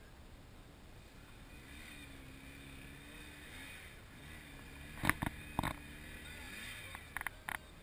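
Faint motorcycle engine running, its pitch wavering up and down with the throttle. Two sharp knocks come about five seconds in, with a few more clicks near the end.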